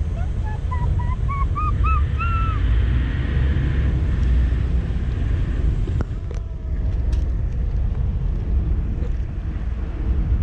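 Ferry running as it comes in to berth: a steady low rumble with wind buffeting the microphone and sea noise. Near the start a quick run of about ten short notes climbs in pitch, and a few sharp clicks come about six to seven seconds in.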